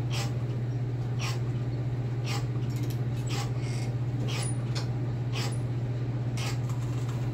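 Cable lat pulldown machine creaking with each pull and return, short squeaks about once a second over a steady low hum; the creaking marks a machine in need of lubrication, like WD-40.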